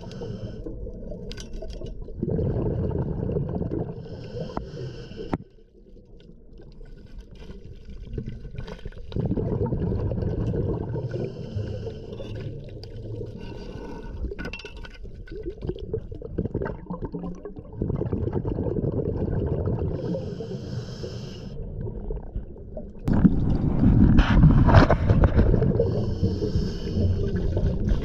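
Muffled underwater rumbling and gurgling of water heard through a submerged camera, coming in surges that stop and start. It is loudest near the end, where a dredging suction nozzle is working into the bottom sludge.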